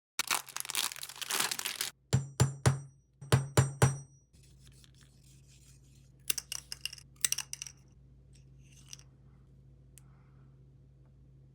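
Hand-crafting noises: about two seconds of rough tearing noise, then two quick groups of three sharp clicks, then a few scattered light ticks over a faint steady hum.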